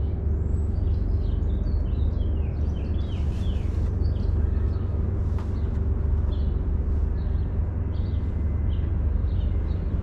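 Small birds chirping in short, repeated calls over a steady low rumble with a faint constant hum.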